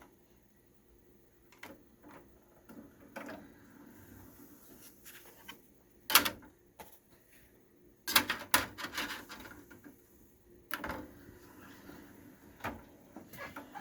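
Sony CDP-C700 CD changer being operated: scattered clicks and clunks of its disc tray and mechanism, the loudest about six seconds in and a quick run of them around eight seconds in.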